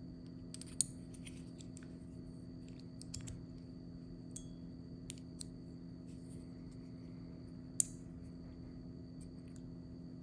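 Metal fidget toy handled in the hands: scattered small metallic clicks and light scrapes, a few seconds apart and irregular, over a steady low hum.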